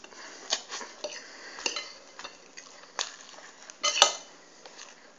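Knife and fork clinking and scraping against a plate as pancakes are cut up and forked. The strokes are irregular, and the loudest clatter comes just before four seconds in.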